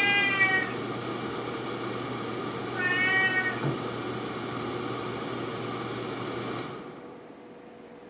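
A domestic cat meowing twice: a long arching meow right at the start and a shorter one about three seconds in. Under it a steady hiss runs and stops about seven seconds in.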